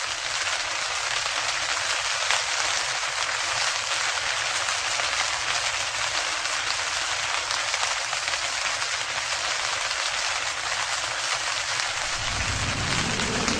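Steady hiss of heavy rain falling, a rain sound effect. Near the end a low rumble comes in and a rising tone begins.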